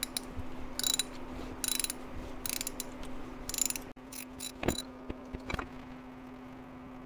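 Ratchet wrench clicking in four short spells while working a spark plug, followed by a couple of light tool knocks. A steady low hum runs underneath.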